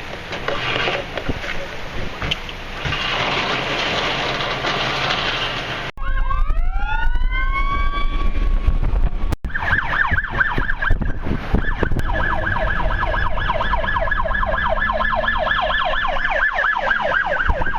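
Strong wind rushing across the microphone. About six seconds in the sound changes abruptly to an emergency vehicle siren: rising wails, then a fast yelp of about four cycles a second.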